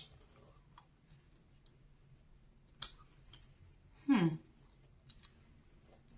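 Soft clicks and faint ticks as a person eats a chewy taffy candy and handles candy at the table, with a short falling hum ("mm") about four seconds in, the loudest sound.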